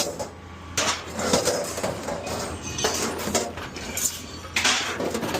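Pieces of scrap metal clattering and scraping as they are moved and stacked, in several separate bouts.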